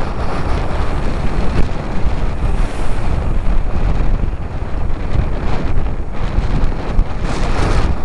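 Hurricane storm wind buffeting the microphone in a heavy rumble, over heavy surf breaking and washing across rocks, with a brief sharper burst of hiss about seven seconds in.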